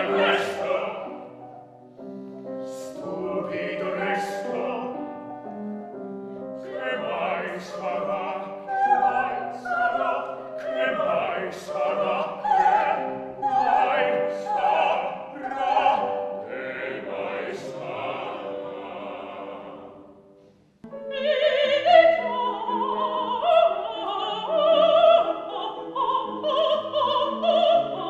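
Operatic singing with instrumental accompaniment. It breaks off about 21 seconds in and another operatic passage starts at once.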